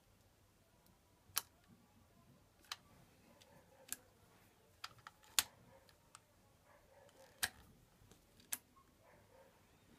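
Turn-signal flasher relay of an IZH Jupiter 5 motorcycle clicking about once a second, a little unevenly, with a smaller click here and there beside the main ones; the engine is not running, and the battery voltage sags as the lamps draw current.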